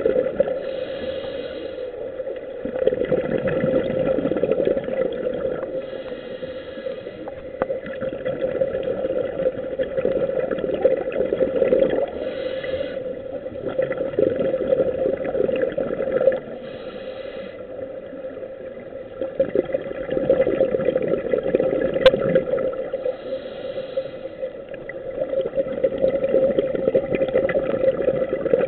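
Scuba diver breathing through a regulator underwater: a rumbling burst of exhaled bubbles every five or six seconds, with a short hiss of inhalation in each quieter gap, over a steady hum.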